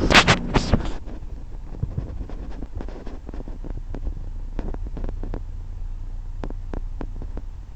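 Steady low rumble with many scattered light clicks and knocks, heard from a small boat moving along a river. A few loud knocks come in the first second.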